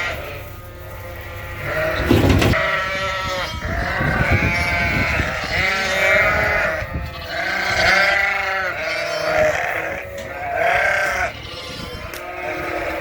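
Flock of sheep and lambs bleating: many wavering calls, one after another and overlapping. There is a short clatter about two seconds in.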